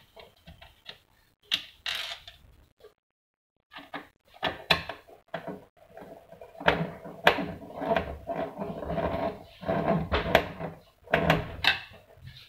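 Plastic housing parts of a GP-1125T label printer being handled and fitted together by hand: irregular clicks, knocks and rattles, busiest in the second half.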